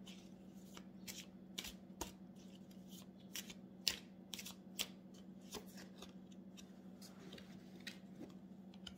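Oracle cards being shuffled by hand: quiet, irregular card clicks and slaps over a faint steady hum.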